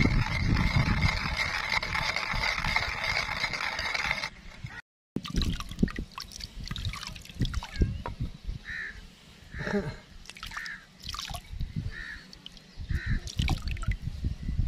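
A wooden pestle grinding wet sardai paste of almonds and fennel in a bowl, a steady wet rubbing and squelching. After a cut about five seconds in come lighter scattered scrapes and knocks as paste is scraped off the pestle.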